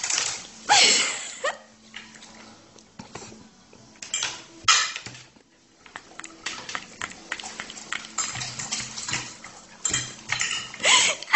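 Cutlery and fingers clinking and scraping on a ceramic plate in irregular sharp clicks, as food is picked off it. Short bursts of a voice come near the start and just before the end.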